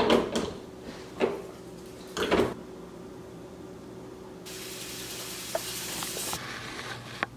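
Home espresso machine being handled: several clunks and knocks in the first couple of seconds, then steam hissing from the steam wand for about two seconds, cut off abruptly, and a click near the end.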